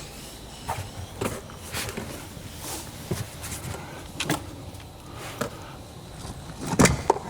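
Scattered knocks, clunks and rustling of hands working in the car's battery bay as the heavy stock battery is lifted out, with a louder clunk near the end.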